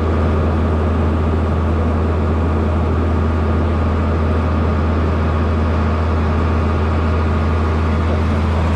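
Tractor engine running steadily, driving a mixer wagon that is mixing cattle feed: a loud, constant low hum with mechanical churning above it and no change in pitch.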